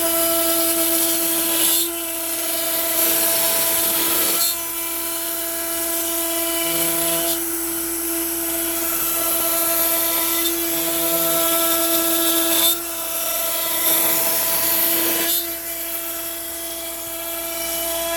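Makita router on a Onefinity CNC cutting pine with a 1/4-inch upcut bit at 250 inches per minute, a steady high whine at about 18,000 rpm over the noise of chips being cut. The cutting noise steps louder and quieter several times as the bit moves into and out of the cut.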